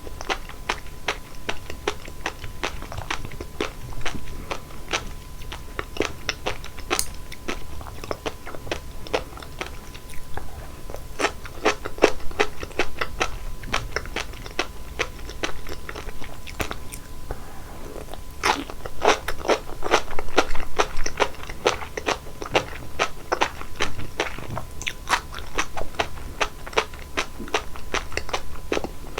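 Close-miked chewing of sea grapes: dense runs of tiny crisp pops as the seaweed beads burst between the teeth, easing off briefly twice.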